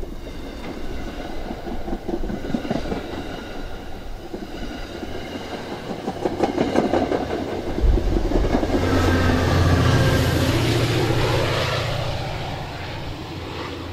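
MBTA bilevel commuter train rolling past, its wheels clicking over the rail joints. About eight seconds in, the low hum of the diesel locomotive pushing at the rear builds as it passes, loudest a couple of seconds later, then fades as it pulls away.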